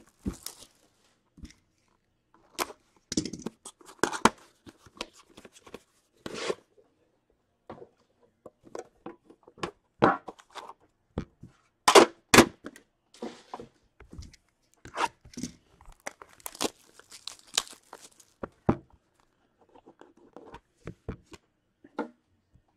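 Plastic shrink wrap torn and crinkled off a sealed hockey card box, then the cardboard box pulled open and handled: irregular crackles, rustles and knocks, loudest in two sharp snaps about twelve seconds in.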